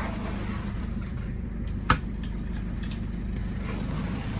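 Steady low hum of an idling engine, with one sharp knock about two seconds in.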